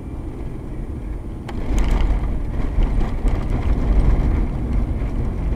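Road and engine noise heard inside a Ford Explorer driving on a snowy road. About a second and a half in there is a knock, then the rumble grows louder with clatter for a couple of seconds as the tyres run over a railway level crossing.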